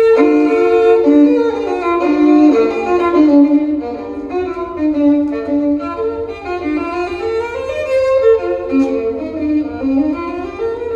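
Violin music played from a vinyl record through a hi-fi system's horn loudspeakers, heard in the listening room. It comes in suddenly with a loud note, then carries on as a melody that moves up and down.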